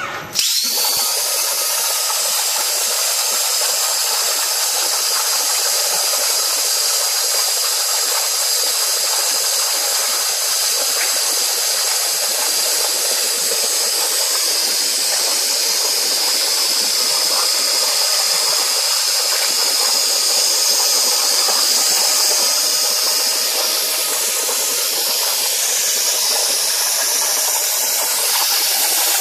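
Plasma torch of a DIY CNC plasma cutter cutting a metal plate: a loud, steady hiss of the arc and air jet that starts abruptly, about half a second in, as the arc strikes.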